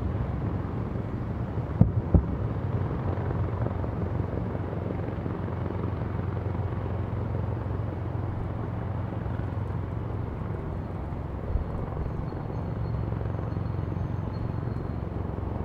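Distant fireworks going off as dull low booms, two about two seconds in and a fainter one near twelve seconds, over a steady low drone.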